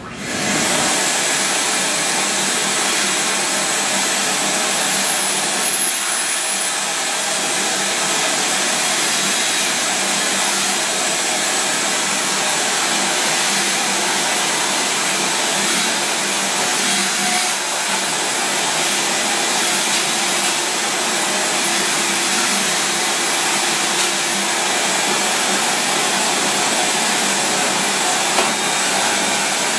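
A machine's steady, loud rushing noise, like a vacuum-type motor and blower, switches on suddenly at the start and runs without letup.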